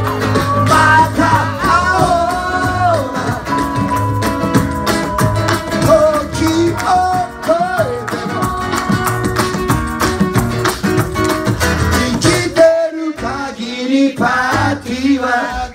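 Live band music: a man singing while playing an acoustic guitar, backed by percussion, a low bass and hand claps. About thirteen seconds in, the bass and percussion drop out briefly, leaving voice and guitar, before the full band comes back.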